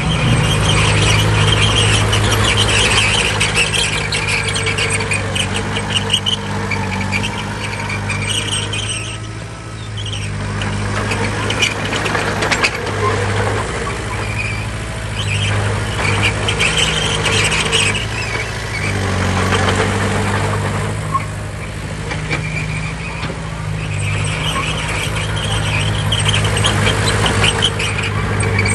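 Heavy diesel machinery engine running steadily, with a high metallic squeal that comes and goes several times.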